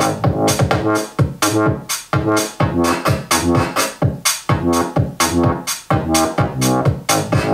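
Electronic dance music with a steady drum-machine beat and heavy bass, played loud from a Tribit StormBox Pro portable Bluetooth speaker for a volume test.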